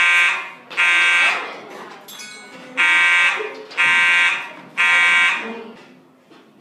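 Fire alarm horn blaring in the temporal-three evacuation pattern: loud half-second blasts a second apart, in groups of three with a pause of about a second and a half between groups. It sounds the end of one group, then a full group of three, and stops after the last blast.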